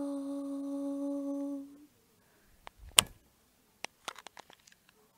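The song's final sung note held steady, then fading out about a second and a half in. After a short silence come scattered sharp clicks and one loud knock, like the recording device being handled.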